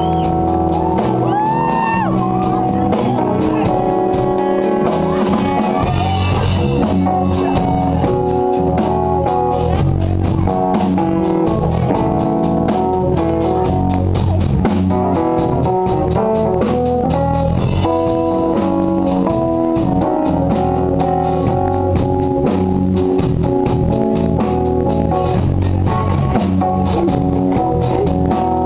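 Live rock band playing, with guitar and drum kit prominent in a steady loud groove.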